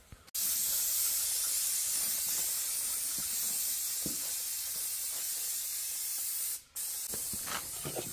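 Aerosol spray can hissing onto an engine crankshaft: one long steady spray of about six seconds, a brief break, then a shorter burst.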